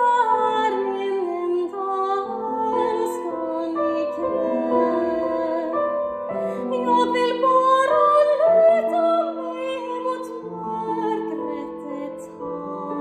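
A woman singing an art song in classical, operatic style, her voice wavering with vibrato over grand piano accompaniment.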